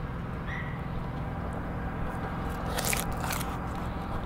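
A fillet knife cutting through a whole mullet on a plastic cutting board: soft slicing, with a couple of short crunching scrapes about three seconds in. A steady low rumble sits underneath.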